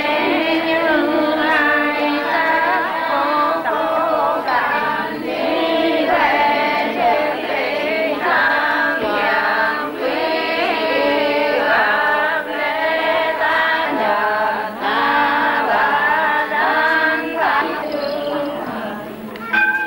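A group of women singing a devotional chant together, voices gliding between notes with no break throughout.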